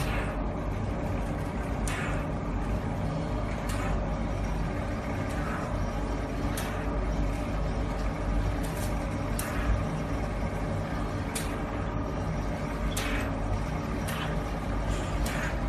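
Suction pump of a hydrogen-oxygen facial machine running steadily, with short irregular hisses as the cleansing handpiece's tip sucks air against the skin.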